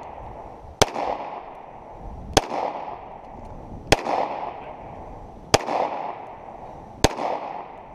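A handgun fired five times at a steady pace, about a second and a half apart, each sharp shot trailing off in a short echo.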